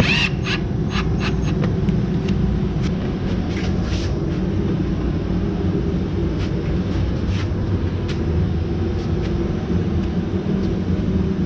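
A steady low rumble of background noise, with a few light clicks and taps in the first couple of seconds.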